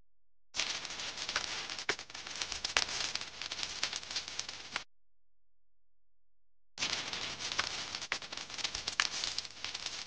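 Wet miniature concrete mix pouring from a small plastic bucket: a crackling hiss with fine pattering clicks, in two pours separated by about two seconds of silence.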